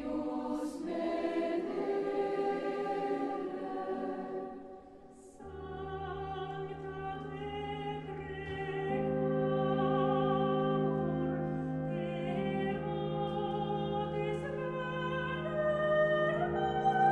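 Background music with a choir singing. About five seconds in it dips briefly, then moves into long held chords with a wavering melody that climbs near the end.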